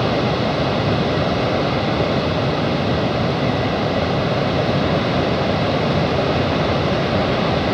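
Steady roar of rushing water from Niagara Falls: an even, unbroken noise with no bangs or bursts.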